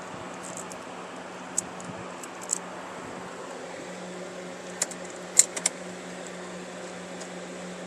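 Several short, sharp clicks of hand tools and small parts being handled, the loudest a quick cluster of three a little past the middle, over a steady hum.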